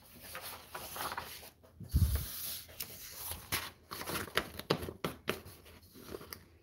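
Sheets of paper rustling and crackling as a stack of folded paper signatures is lifted, flexed and turned over by hand, with a dull thump about two seconds in.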